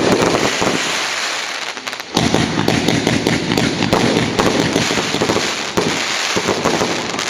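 Fireworks going off: a dense, unbroken crackle of many small rapid bangs, with a fresh loud burst about two seconds in.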